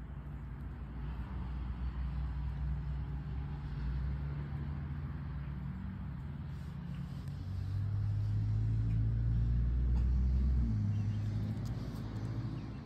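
A low engine rumble, likely a motor vehicle, that swells past the middle and eases off near the end.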